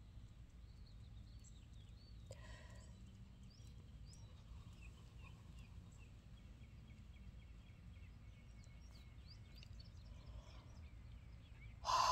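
Faint outdoor ambience: small birds chirping now and then over a low steady rumble. Right at the end comes one louder brief sound.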